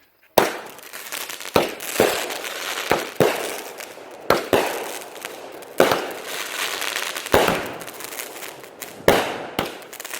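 Blond Joy consumer firework going off, starting suddenly less than half a second in: a string of sharp bangs, about one a second, over a continuous crackling hiss.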